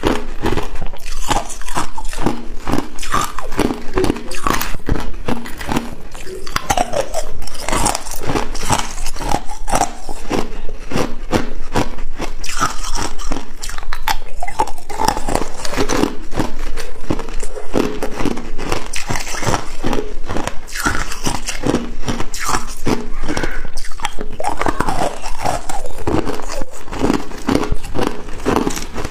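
Crushed ice being bitten and chewed close to the microphone: a dense, continuous run of sharp crunches and cracks as the pieces shatter between the teeth.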